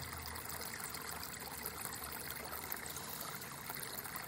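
Steady noise of running, trickling water.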